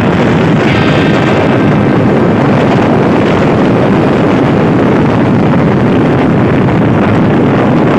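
Loud, steady wind rush on a motorcycle rider's helmet-camera microphone, mixed with the running of motorcycle engines while riding along in a convoy.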